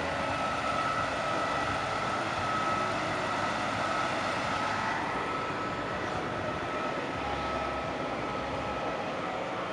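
Diesel engine of a cab-over semi-trailer prime mover running as it drives slowly past, with a steady high whine over it. It is a little louder in the first few seconds as it passes closest, then eases as it moves away.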